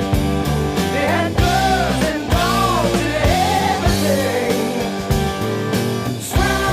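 Rock song with a sung vocal line over guitar, bass and drums with a steady beat.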